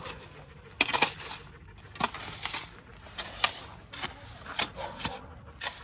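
Steel shovel and hand trowel working wet concrete: about ten short scrapes and knocks of metal on cement at irregular intervals as the mix is spread and smoothed.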